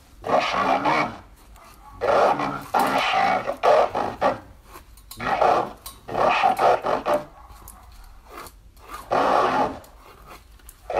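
A man's voice altered by a Transformer-costume voice changer and played through a small portable speaker, in several phrases with short pauses between them.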